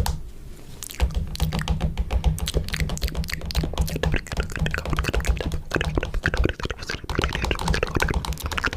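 Rapid, irregular clicking and tapping, which thickens about a second in, over a low rumble.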